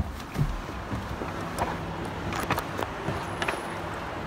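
Car engine idling with a steady low hum, a few light clicks and knocks over it.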